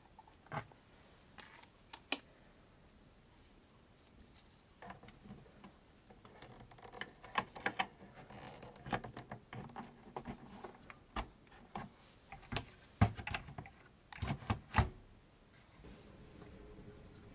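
Hands fitting a floppy drive into an opened desktop Mac case: scattered clicks and knocks of plastic and sheet metal as a connector is pushed in and the drive is seated. The handling grows busier partway through, and a few sharper knocks come near the end.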